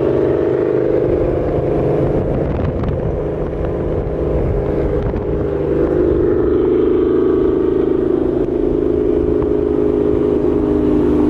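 Ford Mustang GT's 5.0 Coyote V8 with loud exhaust, running at fairly steady revs with a continuous drone.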